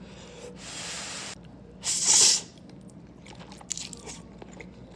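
Close-miked mukbang eating of Buldak noodles with cucumber. There is a loud bite and crunch about two seconds in, then chewing with small scattered clicks.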